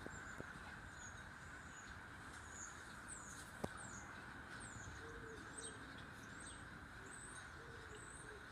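Faint songbird chirping: a run of short, high chirps about two a second, over a steady faint hiss. A single soft click about three and a half seconds in.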